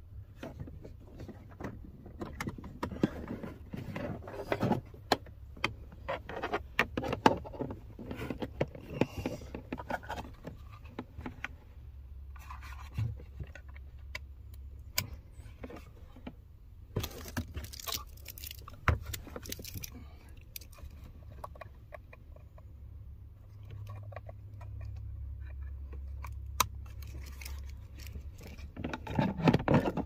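Wiring harness and plastic connectors being handled under a truck's dashboard: irregular clicks, small rattles and rustling over a low steady hum.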